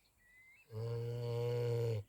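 An animal snoring in its sleep: one long, steady, deep snore that starts about two-thirds of a second in and stops abruptly at the end.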